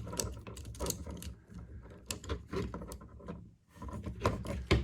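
Plastic parts of a Transformers figure being transformed by hand: a run of irregular small clicks, snaps and rubbing as pieces are shifted and locked into place.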